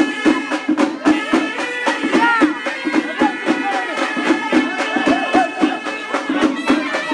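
Live procession music: drums beaten in a quick, steady rhythm under a wind instrument holding high, steady notes, with voices shouting over it.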